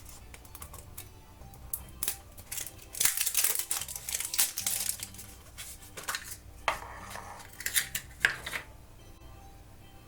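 A toy blind-bag packet being handled and torn open, its wrapper crinkling in bursts, loudest for about two seconds near the middle and in a few shorter bursts after. Soft background music plays underneath.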